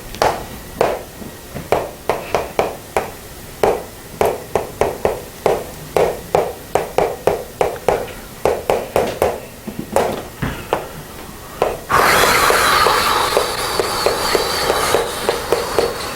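A quick irregular run of short sharp taps, about three or four a second, then about twelve seconds in a steady hiss starts suddenly and runs on.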